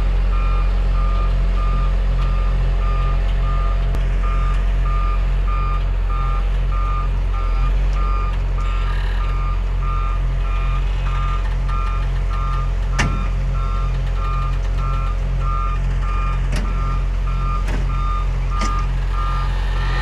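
John Deere 544K wheel loader's backup alarm beeping about twice a second over its diesel engine running steadily as the loader reverses, dragging an overturned tractor upright. A single sharp metallic knock about two-thirds of the way through.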